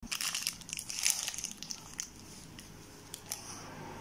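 Crafting supplies handled by hand on a work surface: rustling and crinkling with a few light clicks, busiest in the first two seconds.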